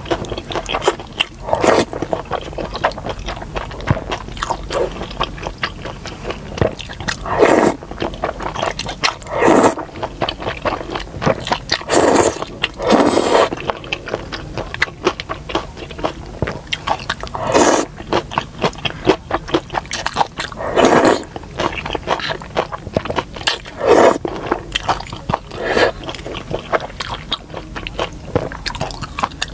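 Close-miked eating of wide liangpi and beef-tendon noodles: the noodles are slurped in short loud bursts every few seconds, between steady wet chewing and chopsticks scraping the paper bowl.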